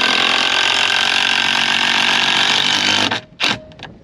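Cordless drill-driver running steadily for about three seconds, backing a fastening out of a wooden hull plank so the plank can come off, then stopping, with a short second burst near the end.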